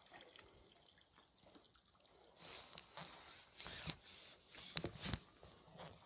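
Water splashing and dripping at the river's edge as a hooked chub is brought to the bank, starting about two and a half seconds in, with a couple of sharp clicks near the end.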